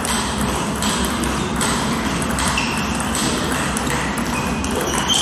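Table tennis balls clicking sharply and irregularly on tables and bats in a large sports hall, roughly one click a second, over a steady low hum. A couple of short high squeaks come through midway and near the end.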